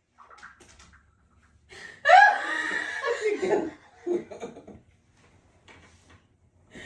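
A woman laughing: a loud, high burst of laughter about two seconds in that falls in pitch, then a few shorter laughs around four seconds.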